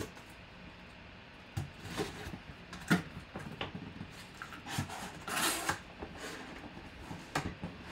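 Cardboard box being opened by hand: flaps bent back and handled, with scattered knocks and scrapes, the sharpest about three seconds in, and a longer scraping rustle about five seconds in as the hand reaches inside the box.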